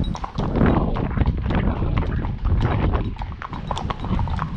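Hooves of several horses clip-clopping on a tarmac road, a busy, uneven patter of hoof strikes over a low rumble.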